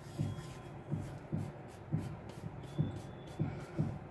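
Dried fenugreek leaves (kasuri methi) being crushed between palms rubbed together: a faint, dry rustle. Under it, soft low thumps keep a steady beat of about two a second.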